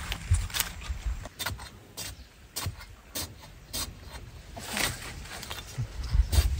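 A long digging bar jabbed and scraped into hard, dry soil: a string of irregular short scrapes and knocks, with one longer scrape about five seconds in.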